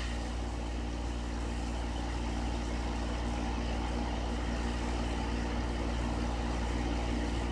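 Steady low hum with hiss from a CB/10-meter radio's speaker on an open channel between transmissions.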